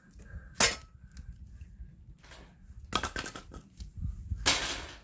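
Split firewood being put into place for a campfire: a sharp wooden knock about half a second in, a cluster of clatters around three seconds in, and a longer scraping rustle near the end.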